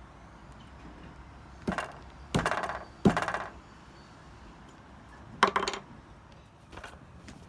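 Wood and tools being handled in a woodturning workshop: five short, rattly knocks and clatters, the loudest about three seconds in, with the lathe not running.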